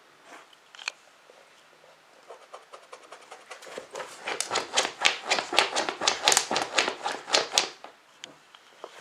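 Husky digging and pawing at a cloth sheet: rapid scratching and rustling of claws on fabric, building about two seconds in and stopping abruptly about a second before the end.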